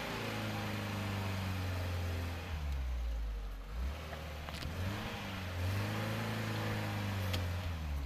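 A car engine revving hard under load in two long surges, rising and falling, as it pulls on a tow strap tied to a tree stump to uproot it.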